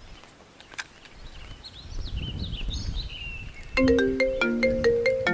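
Birds chirping over a low rumble. About two-thirds of the way in, a mobile phone starts ringing with a marimba-style ringtone, a repeating run of bright mallet notes.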